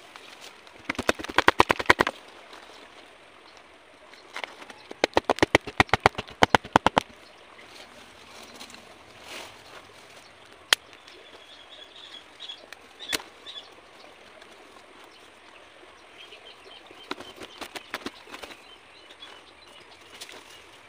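A knife blade scraping along a thin cane strip in two fast, chattering runs of clicks, the first brief and the second about three seconds long. Later come two single sharp clicks and faint bird chirps.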